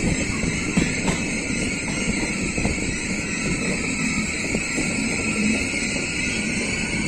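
Electric-hauled passenger train running along the track: a steady rumble and rattle with many irregular clacks of the wheels on the rails.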